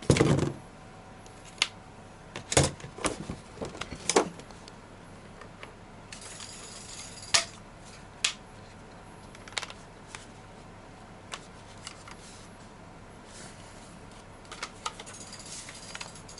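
Crossbow stock and body being pushed together and handled: irregular clicks and knocks of plastic and metal parts, loudest right at the start, with a brief scraping rub about six seconds in and again near the end.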